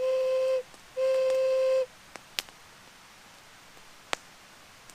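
Handmade pin cherry wood ocarina blown twice on the same clear, steady note, first briefly and then for nearly a second, as it is test-played during tuning. Two sharp clicks follow.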